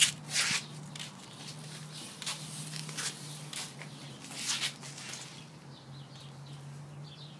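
Footsteps in sandals scuffing and slapping irregularly on a concrete path, fading out about five seconds in.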